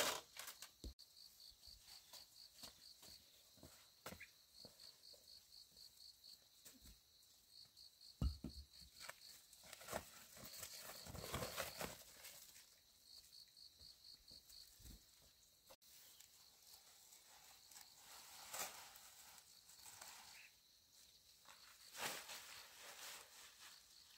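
Faint insect chirping: short trills of rapid, high pulses, repeated every few seconds. Scattered light rustles and soft knocks, with one low knock about eight seconds in.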